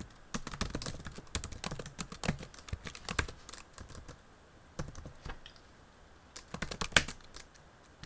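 Typing on a computer keyboard: fast runs of key clicks, a pause of about a second midway, then shorter bursts, with one sharper keystroke about seven seconds in.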